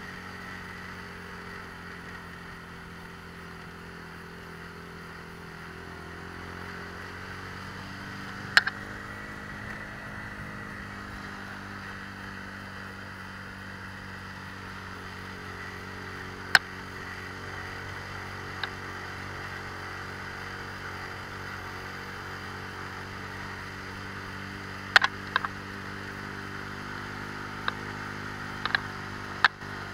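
Motorcycle engine running steadily at cruising speed while riding, its pitch shifting slightly now and then. Several sharp knocks stand out above it, a few seconds apart and bunched toward the end.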